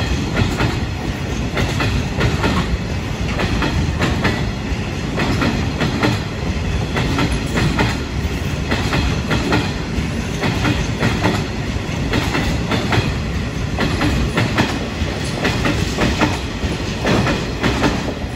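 Freight train of stanchion wagons rolling past on the adjacent track: a continuous rumble with wheels clattering over rail joints.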